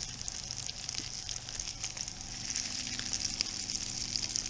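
Mutton snapper fillets frying in avocado oil in a pan: a steady sizzle with small crackling pops, the fillets freshly flipped and browning.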